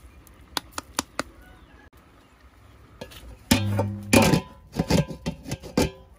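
Metal pot lid being set onto a large metal cooking pot full of snails: a few light clicks about half a second in, then a loud clang a little past the middle that rings on, followed by smaller rattling knocks as the lid settles.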